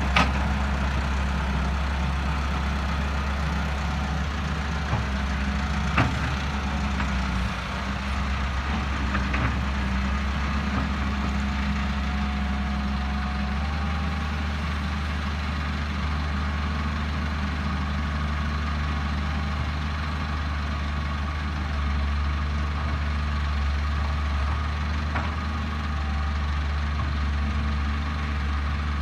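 Diesel engines of a wheeled excavator and a farm tractor running steadily, a low engine hum throughout, with a few sharp knocks from the work.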